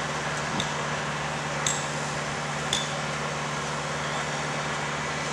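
Steady running hum of track-maintenance machinery at a tie-replacement job, with three sharp metallic taps about a second apart.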